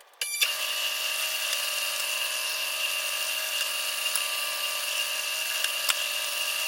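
Electric power tool motor switched on with a couple of clicks just after the start, then running steadily at speed with a high whine.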